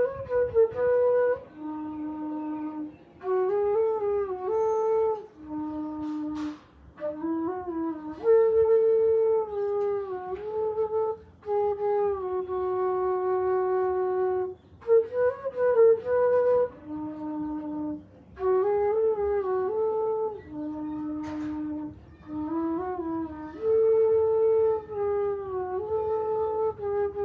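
A flute playing a slow melody low in its range: short rising and falling phrases between long held notes, the opening phrase coming back about halfway through.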